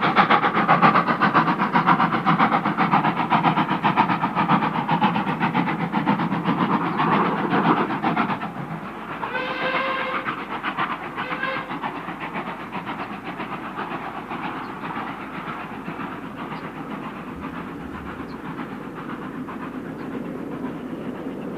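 Steam locomotive, Caledonian Railway 0-6-0 No. 828, working a train up a climb with rapid exhaust beats that drop away after about eight seconds into a fainter, steady running sound. A whistle sounds twice near the middle, a longer blast then a short one.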